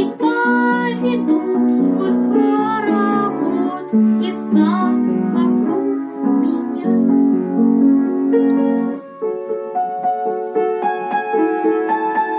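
A child singing a song with piano accompaniment. The voice stops about nine seconds in, and the piano carries on alone.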